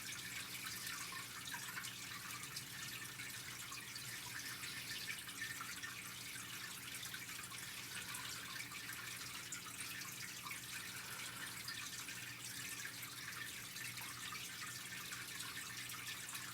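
Steady low-level hiss with faint crackle and a low steady hum, with no distinct events: background room tone.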